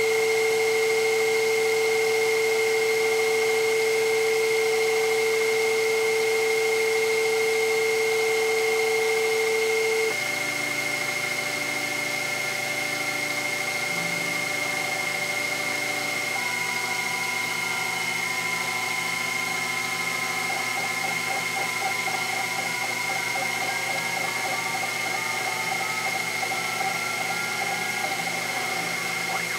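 Sherline CNC mill cutting Delrin with an end mill while the rotary fourth axis turns the stock. A steady high motor whine runs throughout, with stepper-motor tones that change with the feed: a strong steady hum stops abruptly about ten seconds in, pulsing tones follow, and in the second half the tones slowly rise and fall as the axes move together.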